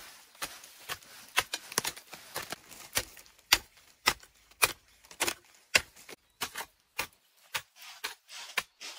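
A series of sharp knocks, about two a second and uneven, the loudest about three and a half seconds in.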